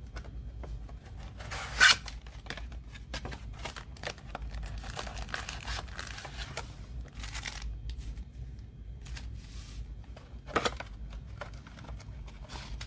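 A cardboard trading-card box being opened and its packs lifted out by hand: cardboard rustling and scraping, with a sharp, louder noise about two seconds in and another about ten seconds in.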